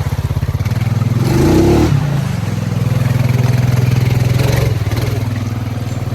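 Honda Rubicon ATV's single-cylinder engine running, revving briefly about a second in, then holding a steady, higher note before easing off near five seconds in.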